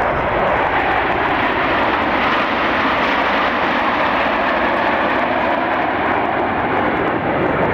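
Jet aircraft engines at close range: a loud, steady rush of noise that holds level throughout.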